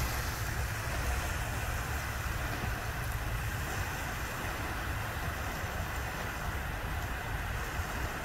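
Steady low rumble with an even hiss: wind buffeting the microphone over rippling water.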